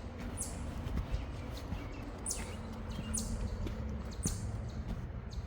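A bird calling: four short, high notes that each sweep steeply downward, spaced about a second apart, over a low rumble.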